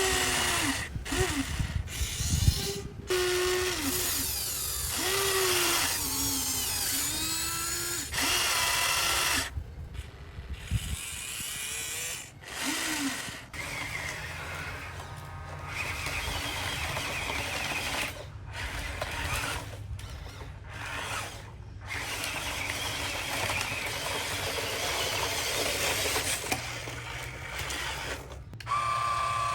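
Small electric motors of a Huina RC excavator whining in short runs, their pitch rising and falling as the motors start and stop. A steadier, higher whine comes near the end, and the sound breaks off abruptly several times.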